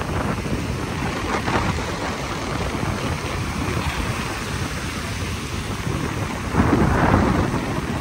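Ocean surf washing and breaking in the shallows, a steady rushing with a louder wave crash about six and a half seconds in.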